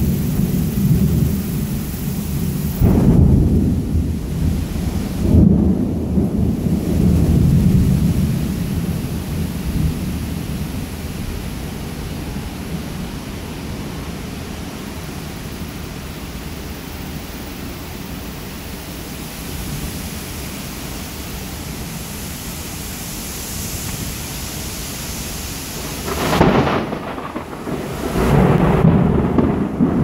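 Thunder rolling over steady rain: long low rumbles through the first several seconds, then the rain alone, then two more rolls near the end.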